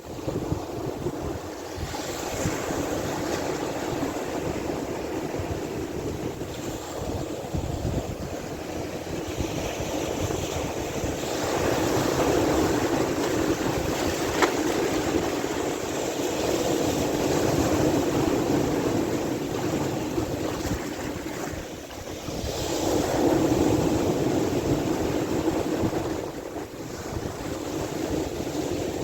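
Sea waves washing in, a continuous rush that swells and falls back in slow surges, with wind buffeting the microphone.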